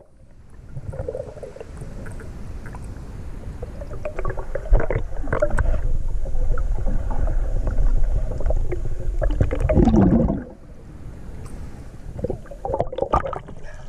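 River water heard underwater through a waterproof camera housing: a muffled low rumble of the current with scattered knocks and clicks, which drops off suddenly about ten seconds in.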